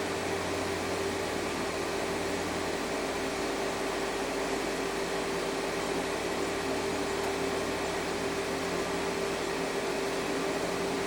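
Steady hum and hiss of running shop equipment, with a lower hum that stops about three seconds in.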